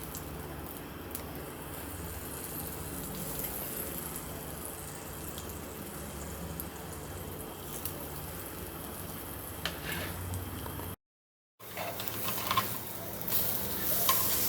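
Egg-coated bread pieces frying in ghee in a pan, a steady soft sizzle. After a brief drop to silence about eleven seconds in, the sizzling is louder and brighter, with a few clicks.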